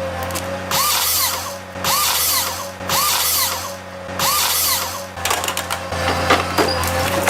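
Machinery: a steady low engine hum under a whirring, drill-like noise that comes in bursts about once a second.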